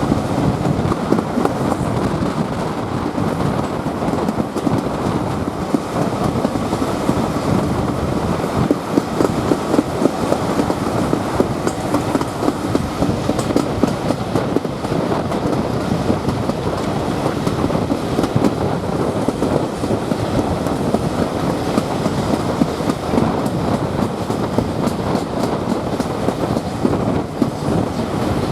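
Train running steadily along the line: a continuous rumble of carriage wheels on the track with irregular clicking over the rail joints.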